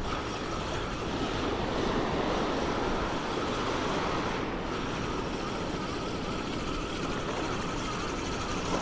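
Small waves washing up and back over a sandy beach at the waterline, with wind blowing across the microphone.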